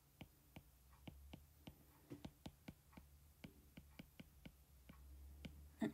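Stylus tapping and scratching on a tablet screen during handwriting: a string of faint, irregular clicks, several a second, over a low steady hum.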